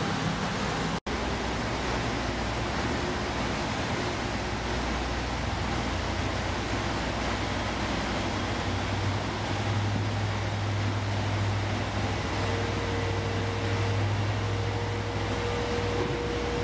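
Tracked amphibious assault vehicle's engine running with a low, steady hum under a constant rushing noise; the hum grows stronger in the second half. There is a brief dropout about a second in.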